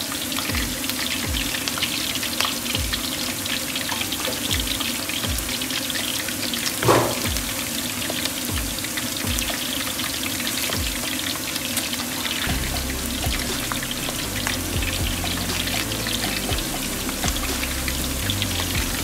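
Bread pieces deep-frying in a wok of hot oil: a steady sizzle with fine crackling, over soft background music with a slow low beat. A short, louder sound stands out about seven seconds in.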